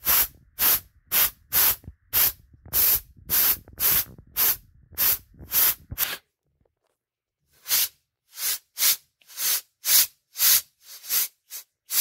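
Compressed air blown in short blasts, about two a second, into a washing-machine transmission through a rubber hose, pausing for about a second and a half partway through. The air pressurises the gearbox to force its oil out past the leaking seal.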